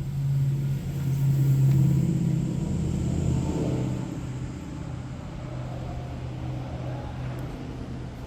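A car engine running steadily, louder over the first few seconds and then easing to a lower, even level.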